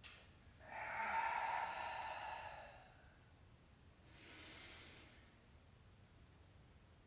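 A woman's slow yoga breathing, heard close to the microphone: one long breath lasting about two seconds, then a quieter, shorter breath about four seconds in.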